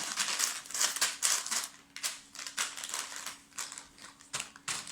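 Plastic bags of small plastic building pieces being handled: a run of quick crinkling and clicking noises, with a faint steady hum underneath.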